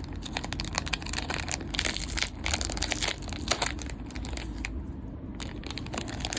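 Plastic trading-card poly pack wrapper crinkling and crackling with many irregular crackles as it is handled and pulled open by hand.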